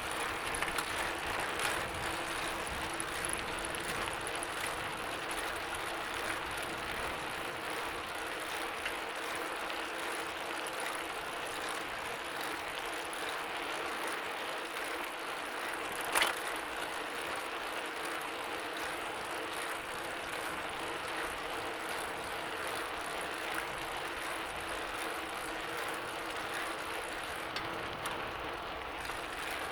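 Bicycle being pedalled: the chain and drivetrain run steadily with fine, fast ticking, and there is one sharp click about halfway through.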